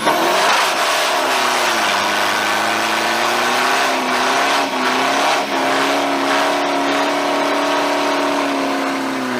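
A car engine running and accelerating, its pitch dipping briefly near the start and then climbing slowly and steadily.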